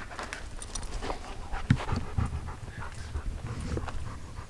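A dog panting in short, irregular breaths, with a low rumble underneath.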